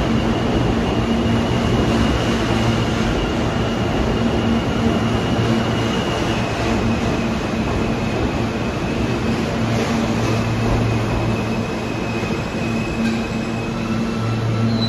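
Alstom R160A-1 subway train running through an underground station: a steady rumble of steel wheels on the track with a low hum and a thin high whine that steps down in pitch about six seconds in. A brief high squeal comes in at the very end.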